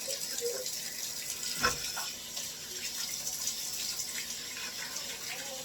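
Water running from a tap into a sink during handwashing, a steady hiss, with a single knock about a second and a half in.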